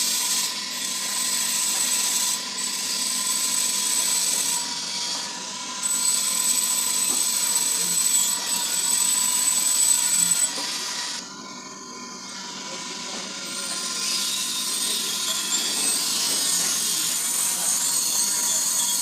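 Grinder grinding a large engine valve pushed against it by hand: a steady motor whine over a harsh grinding hiss. The grinding eases off about eleven seconds in and builds back over the next few seconds.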